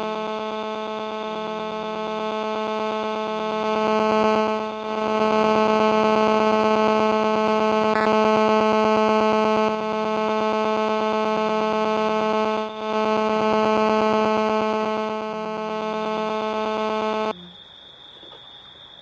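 Steady, low-pitched electronic buzz that dips briefly twice and cuts off suddenly near the end.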